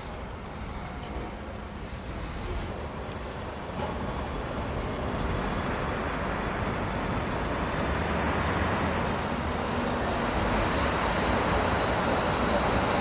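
Street traffic noise with an articulated electric tram approaching on street track, its running noise on the rails growing steadily louder.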